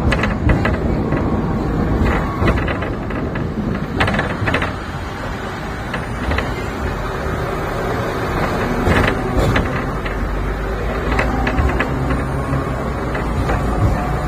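Hong Kong double-decker tram running along its street tracks, heard from on board: a steady low rumble with irregular clacks and rattles of the wheels and car body.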